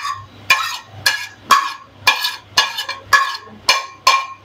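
A metal spoon scraping and tapping against a ceramic plate, clinking about twice a second as sliced onions are pushed off it into hot oil in a pan.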